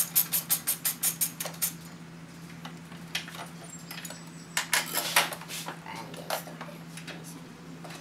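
Hand ratchet clicking rapidly, about seven clicks a second, as it turns a car battery terminal nut loose; it stops under two seconds in. Then a few metallic clinks and rattles of tool and terminal hardware.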